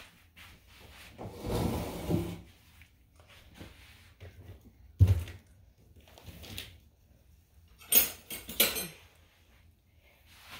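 Kitchen handling noises: a rustle about a second in, a sharp knock around five seconds, and a quick clatter near eight seconds, like a cupboard and dishes being handled.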